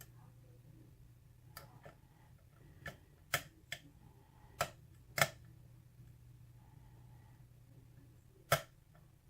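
Sharp, irregular clicks from a lock pick working the pins of a six-pin pin-tumbler lock with a Weiser keyway: about seven clicks, the loudest about five seconds in and near the end, as pins are lifted and set.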